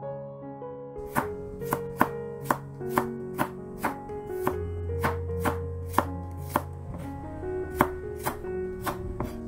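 Kitchen knife slicing peeled garlic cloves into thick slices on a wooden cutting board, each cut ending in a knock of the blade on the board, about twice a second from about a second in.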